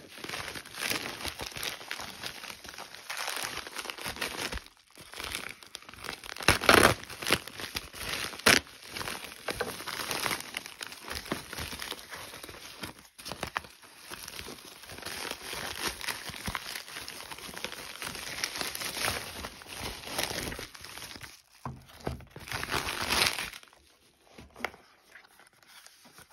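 Plastic bubble mailer being handled and torn open, crinkling and rustling throughout, with a few sharp louder crackles and tears. Paper packing slip rustling and a cardboard box being handled among it.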